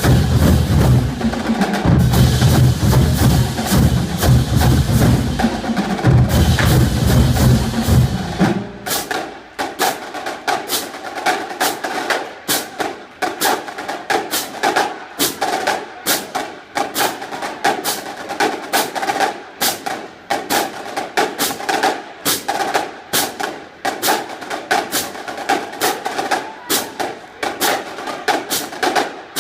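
Marching drumline playing a percussion cadence. For the first eight seconds or so the bass drums and full battery play loud and dense; then the low drums drop out, leaving fast, crisp, clicking strokes in a steady rhythm.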